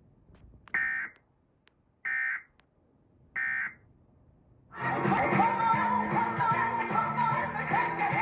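Emergency Alert System end-of-message data bursts: three short, identical buzzy warbling bursts of digital data tones about a second and a half apart, marking the end of the alert. About five seconds in, broadcast music starts up.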